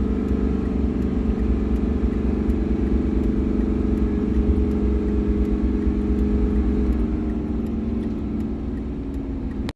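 2002 Chevrolet Silverado's Duramax 6.6 L V8 turbodiesel pulling at full throttle around 2,900 rpm, heard from inside the cab, its pitch sagging slightly and its level falling near the end. The truck is down on power under load, with fuel rail pressure far below what the computer commands (code P1093).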